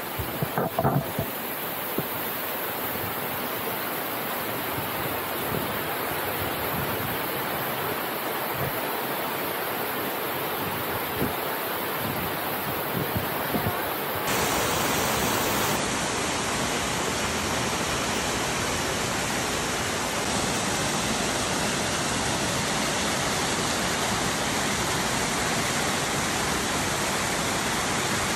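Waterfall and creek water rushing steadily over rocks, with a few short knocks in the first second or so. About halfway through, the rush turns suddenly louder and brighter.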